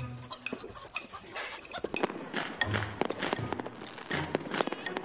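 Background music with a slow, stepped low bass line. A few faint chicken clucks sound in the first second, and a quick run of sharp clicks and crackles fills the second half.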